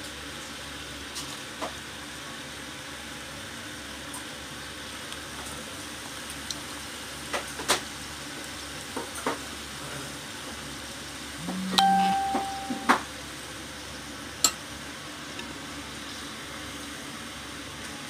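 Potato croquettes deep-frying in hot oil with a steady sizzle. They are golden brown and nearly done. Scattered sharp clicks come from long cooking chopsticks tapping the pot as the croquettes are turned and lifted out, and a brief steady tone sounds about two-thirds of the way through.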